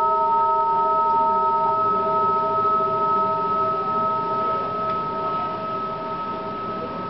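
Several steady, pure tones held together at different pitches, making a ringing drone. One of the middle tones cuts off about two seconds in, and the rest slowly fade.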